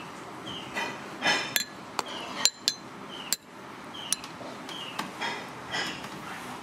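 A metal spoon clinking and scraping against a ceramic bowl as fish soup is scooped, with several sharp clinks in the middle few seconds. A faint, short, falling chirp repeats about once a second underneath.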